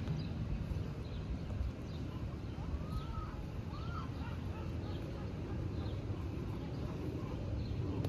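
Steady low outdoor rumble, with two short, arching animal calls about three seconds in.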